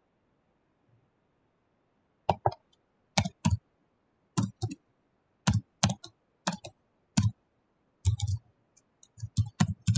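Computer keyboard keys being typed slowly, a click or two about once a second, then a quicker run of keystrokes in the last two seconds as an email address is entered.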